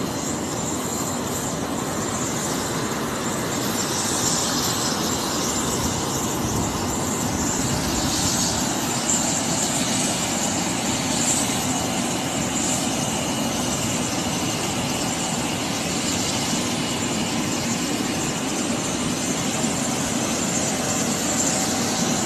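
Aircraft engines running: a steady roar with a thin, high, steady whine over it.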